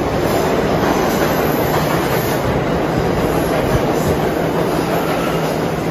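New York City subway train on the A line pulling into the station alongside the platform: a loud, steady rumble of steel wheels on rail.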